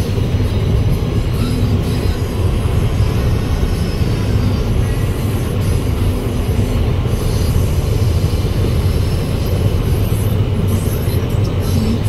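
Steady in-cab rumble of a vehicle driving on a snow-covered highway: low engine drone with constant tyre and road noise.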